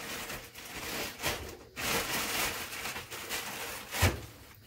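Plastic clay bag rustling and crinkling as trimmed clay scraps are put back into it, with a dull thump about four seconds in.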